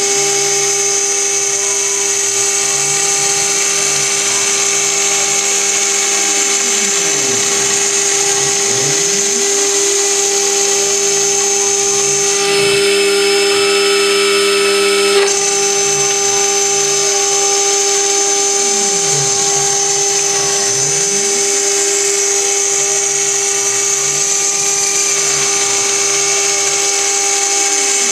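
Metal CNC router's high-speed spindle milling an aluminium plate: a steady high-pitched whine with a cutting hiss, crossed by repeated sweeps that fall and then rise in pitch. About halfway through it grows louder and harsher for a few seconds, then drops back sharply.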